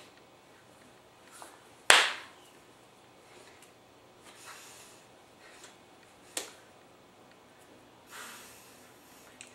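Two sharp hand slaps or claps from signing: a loud one about two seconds in and a weaker one about six seconds in. Faint rustling comes between them.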